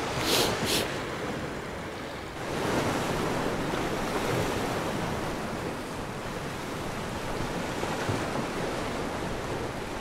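Sea surf washing steadily against shore rocks, with wind, getting a little louder after about two seconds. Two brief high rustles come in the first second.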